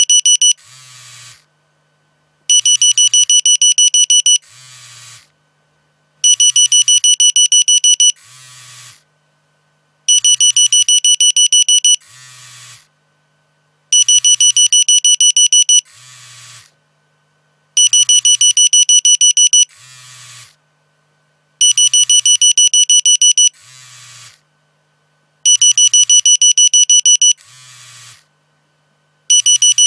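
Nokia mobile phone alarm tone going off on repeat. Each cycle is about two seconds of very rapid, high-pitched beeping, then a brief much fainter sound and a pause of about a second, repeating roughly every four seconds.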